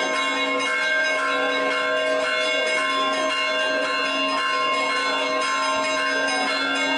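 Church bells ringing a continuous festive peal, several bells sounding together in a fast repeating pattern.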